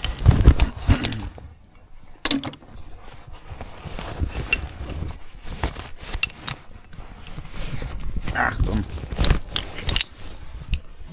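A metal ball-joint puller being handled and pulled out of a pocket: scattered metallic clinks and rustling, with a few heavy low thumps in the first second.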